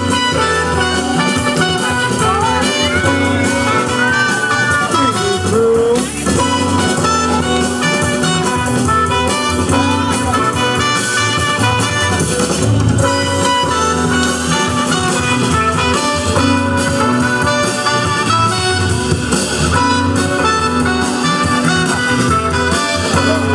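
Loud music playing over a PA speaker in a large hall.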